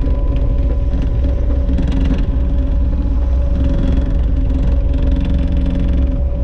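Kubota SVL75-3 compact track loader's four-cylinder diesel engine running steadily, a low rumble with a steady whine held over it.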